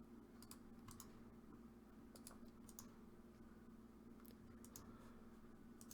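Faint computer keyboard typing: a few scattered keystrokes in small clusters over a low steady hum.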